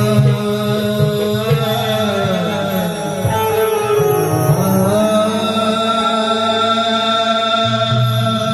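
Marathi gavlan folk song: a man sings long, sliding held notes over steady instrumental accompaniment.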